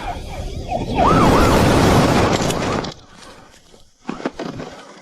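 Police siren sound effect wailing in rising-and-falling sweeps over a loud rush of noise, which cuts off suddenly about three seconds in.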